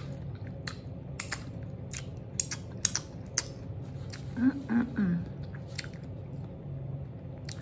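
A person chewing food close to the microphone, with sharp wet mouth clicks and smacks. A short closed-mouth hum comes about halfway through.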